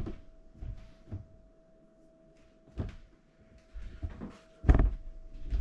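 A few separate knocks and clatters of kitchen things being handled and set down, the loudest near the end, over a faint steady hum.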